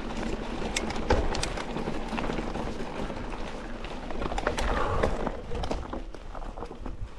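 E-mountain bike rolling along a rough track: steady tyre and wind rumble with frequent small clicks and rattles from the bike and the ground.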